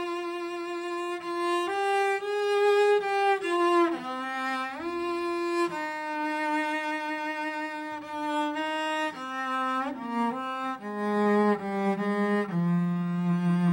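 Solo bowed string instrument playing a slow melody: one line of long held notes, some joined by slides, moving down to its lowest notes near the end.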